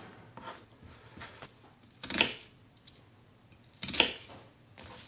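Knife cutting through a raw onion on a cutting board: two crisp cuts about two seconds apart, with a few faint taps before them.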